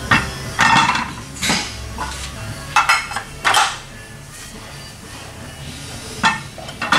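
Metal clanks and clinks from work at a Fox Body Mustang's front wheel and hub: about seven short, separate knocks with a brief ring, bunched in the first four seconds, with two more near the end.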